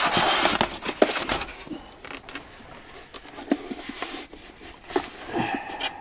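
Rustling and scraping as a diesel air heater unit is lifted out of its foam packaging tray in a cardboard box, loudest in the first second or so, then quieter handling with a few light knocks and clicks as the unit is turned over.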